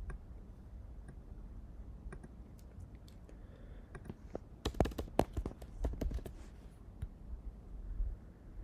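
Computer keyboard and mouse clicks: a few scattered light clicks, then a quick run of sharper clicks about halfway through.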